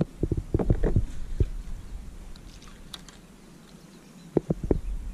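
Handling noise on a kayak: a quick run of soft knocks and clatter in the first second and a half, then another short run of knocks about four seconds in.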